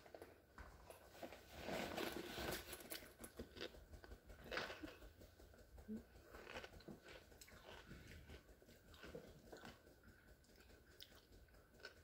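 Faint crunching and chewing of chips, in soft, irregular bites that are a little louder about two seconds in and again near the middle.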